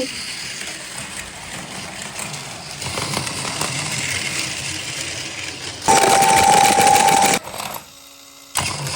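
Battery-powered Plarail toy train running on plastic track: the small motor and gears give a steady whirring rattle. About six seconds in, a louder sound with a steady high tone comes in for over a second and cuts off abruptly, followed by a brief near-silent gap.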